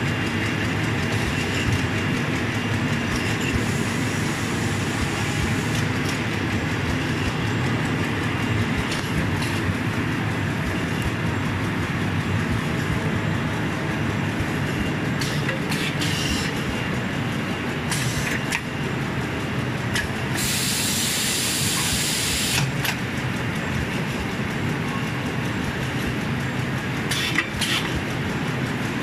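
Pocket tissue production line running: a steady, dense mechanical clatter of folding, conveying and packing machinery. Short hisses cut in now and then, with a longer two-second hiss about two-thirds of the way through.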